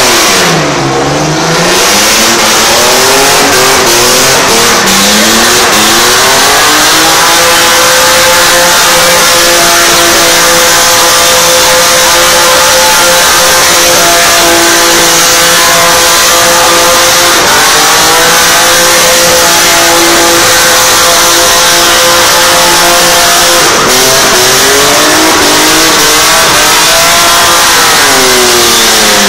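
Car engine revved hard and held at high rpm through a tyre-smoking burnout. The revs climb from low at the start and dip and climb back several times, twice in the middle and again near the end. The spinning tyres hiss underneath.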